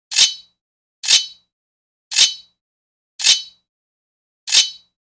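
Sword blade scraping against metal in five short, quick strokes about a second apart, each a bright, hissy scrape with a slight metallic ring that fades quickly.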